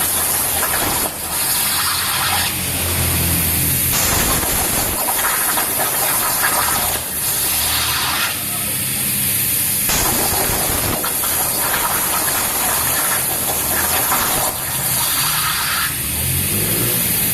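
CNC cutting machine working, giving a steady loud hiss over a low hum. The sound shifts abruptly every second or two.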